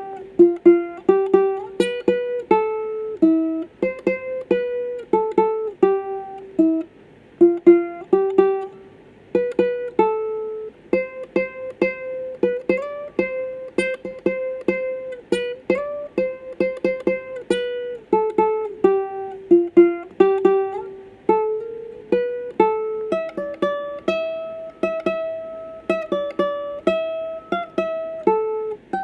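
Doner ukulele played for a sound check: a melody picked out note by note, each pluck ringing and fading.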